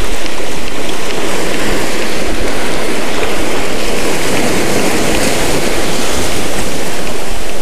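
Waves breaking and washing up a sandy beach, a steady loud rush of surf, with wind buffeting the microphone.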